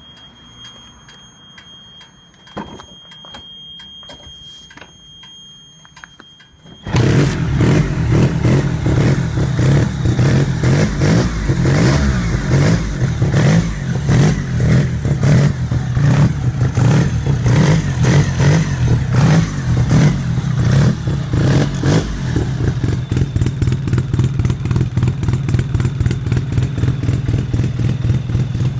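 Wankel rotary engine starting about seven seconds in and then running loudly with a rapid, even pulsing beat. Before it catches there are only faint steady high tones and a few clicks.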